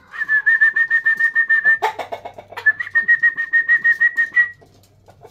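A bird's rapid trill of whistled notes, about ten a second, in two runs of nearly two seconds each, with a short lower call between them.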